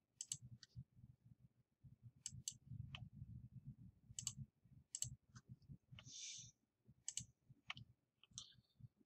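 Computer mouse buttons clicking, about a dozen sharp clicks, some in quick pairs like double-clicks, with a brief soft hiss about six seconds in.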